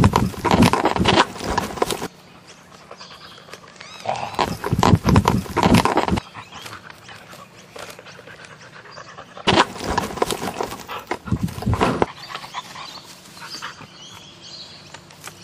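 A dog panting hard and running over grass, in three loud bursts with quieter stretches between.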